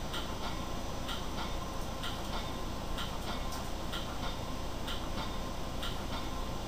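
Steady running noise inside a moving commuter train coach, with a sharp tick repeating evenly about once a second.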